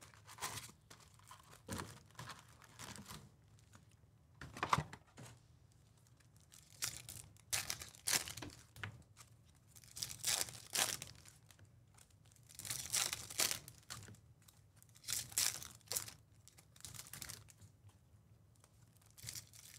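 Foil trading-card pack wrappers being torn open and crinkled by hand, in irregular short bursts of tearing and rustling, with packs and cards handled in between.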